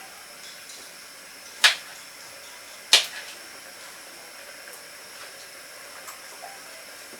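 Two sharp knife knocks on a cutting board, about a second and a half apart, as okra pods are trimmed. Under them runs a steady faint hiss.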